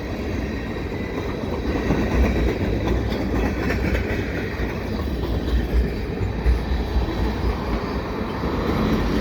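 Freight train of tank cars rolling past, a steady noise of steel wheels running on the rails.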